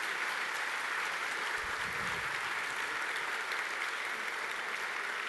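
Audience applauding steadily, with a soft low thump about two seconds in.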